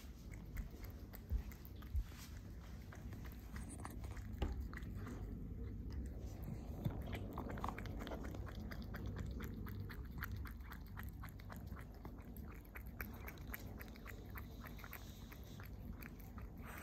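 Cat biting and chewing a piece of cooked tuna, a steady run of small mouth clicks, a few a second. There are a couple of low thumps in the first two seconds.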